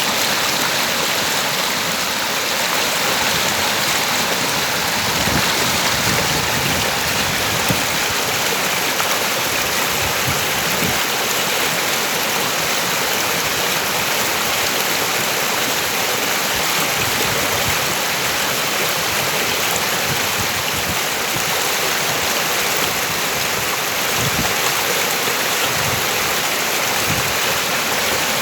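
A river's flowing water rushing and splashing, a steady unbroken wash of noise.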